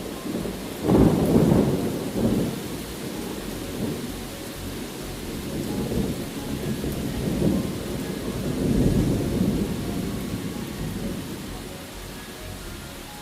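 Steady rain with rolling thunder: a loud rumble breaks about a second in, and a few more low rolls swell and fade through the middle.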